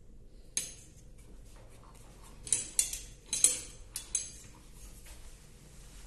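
Steel ruler clinking and tapping as it is handled and set against a garbage disposal unit. There is one sharp click about half a second in, then a quick run of four or five sharp metallic clinks around the middle.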